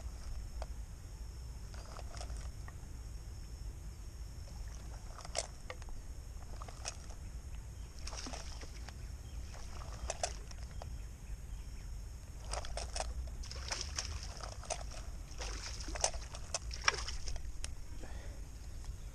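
Steady low rumble with scattered clicks and short rustles, busiest in the second half, from a hand fishing line being handled and pulled in toward a hand spool.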